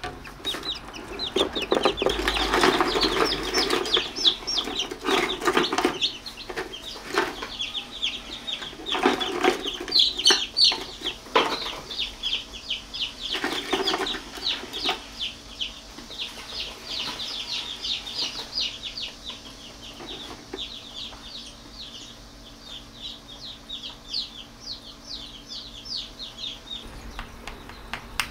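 Chicken chick peeping continuously in quick, short, high, falling cheeps. Louder bursts of rustling come in the first half.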